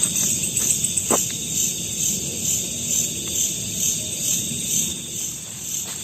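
Night chorus of crickets and other insects, a steady high-pitched trill that pulses evenly, over a low rumble, with a few faint clicks.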